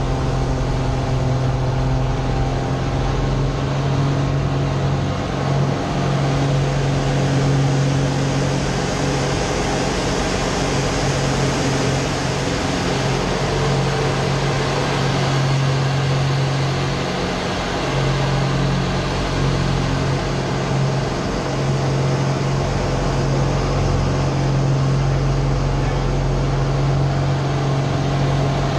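Slick 540 aerobatic plane's six-cylinder Lycoming engine and propeller running steadily, heard from inside the cockpit through the manoeuvres, with the engine note dipping briefly about five seconds in and again around seventeen seconds in.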